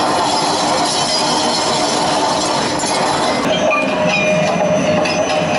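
Train running noise from a motion-seat train simulator: a loud, steady rail noise, with a thin high whine like wheel squeal setting in about three and a half seconds in.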